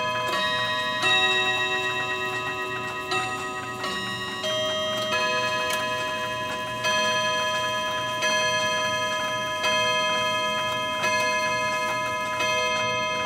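New Haven clock movement chiming: several ringing notes of its chime tune, then a slow run of single hour strokes about every one and a half seconds, each note ringing on into the next, with the movement ticking beneath.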